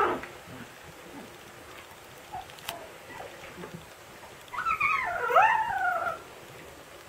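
Siberian husky puppy yowling: a drawn-out, wavering cry of about a second and a half, its pitch sliding up and down, starting about two thirds of the way in. Before it, only a few faint squeaks and the falling end of a yelp at the very start.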